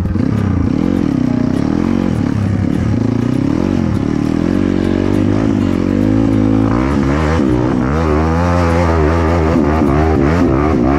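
Dirt bike engine being ridden hard on a trail, its pitch rising and falling with the throttle. It revs higher from about six seconds in.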